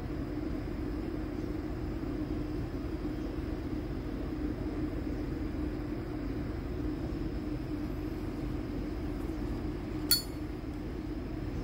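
Steady low background hum, broken about ten seconds in by a single sharp metallic click from a brass Zippo lighter being handled.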